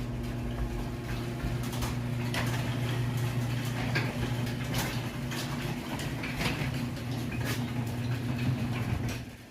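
Blizzard wind noise with a steady low hum beneath it, and irregular crunching steps in snow about every half second to a second. It cuts off abruptly near the end.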